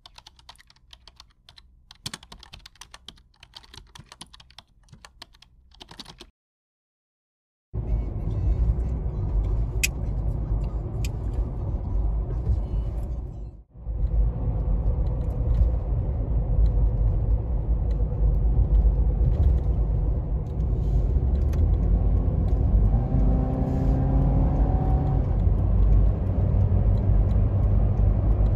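Keyboard typing, a quick run of key clicks for about six seconds. After a short silence, a loud steady low rumble of a road vehicle in motion takes over, its engine note rising slightly about two-thirds of the way through.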